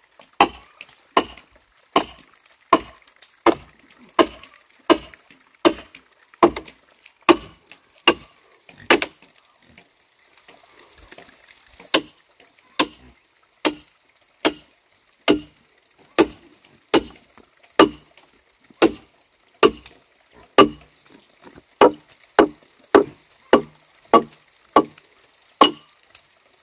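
Machete chopping into wood: a steady run of sharp blows about one every three-quarters of a second, each with a short ring, with a pause of about three seconds near the middle.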